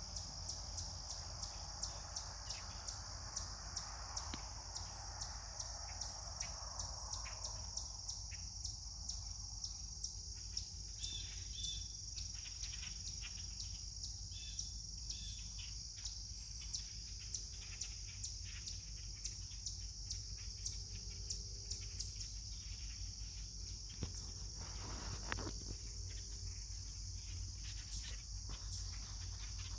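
A flock of common grackles calling: a run of short, sharp chuck-like clicks a few times a second, with a few brief squeaky calls, over a steady high-pitched insect trill.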